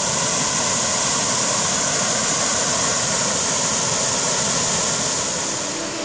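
Steady rush of water from a cascading waterfall, a dense, even hiss with most of its weight in the high range, easing slightly near the end.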